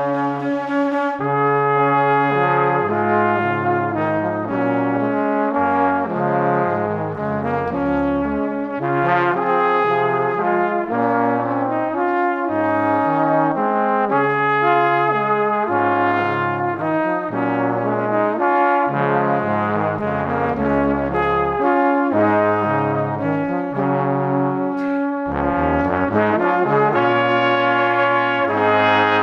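Music soundtrack led by brass, with trombone and trumpet playing a lively tune over a moving bass line.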